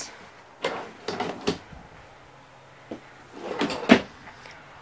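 RV kitchen cabinet drawer on full-extension slides being pulled open and pushed shut: a scraping rattle about a second in, then more rattling that ends in a sharp knock as it closes.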